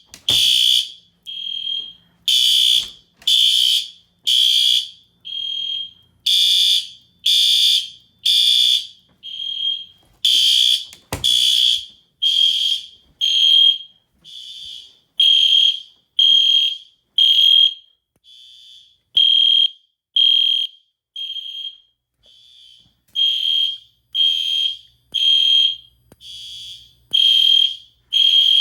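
Fire alarm horns sounding in alarm after a pull station has been activated: a repeating blast of a tone near 3 kHz, about one a second, some blasts weaker than others. A single sharp click about eleven seconds in.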